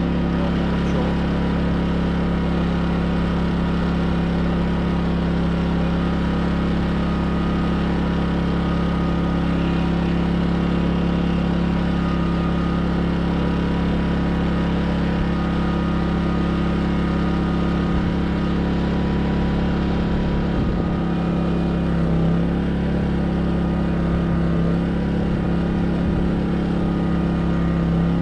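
Craftsman 2200i inverter generator's small four-stroke engine running at a steady, even drone during its first run.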